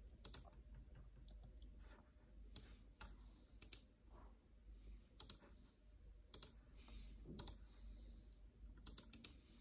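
Faint, irregular clicking of a computer mouse and keyboard, a dozen or so clicks, some in quick pairs, over a low room hum.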